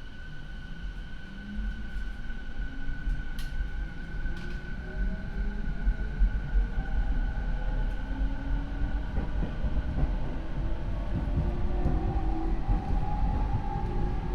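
Rinkai Line 70-000 series electric train with a Mitsubishi IGBT inverter and MT73 traction motors pulling away, its motor whine climbing steadily in pitch as it accelerates, with wheel and track rumble growing underneath. The motor sound of this car is unusually loud right from the start, marking it as a noisy unit.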